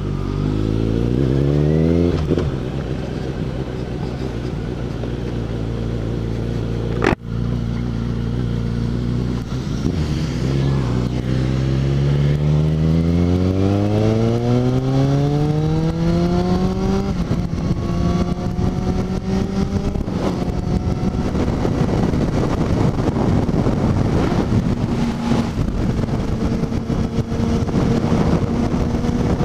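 Suzuki GSX650F's inline-four engine pulling away under acceleration: the revs climb, drop at a gear change, then climb again in one long pull before settling to a steady cruise. Wind and tyre noise on the wet road grow under the engine, and there is one sharp click about seven seconds in.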